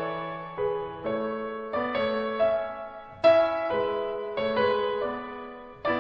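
Background music on a piano-like keyboard: chords struck one after another, each fading away before the next.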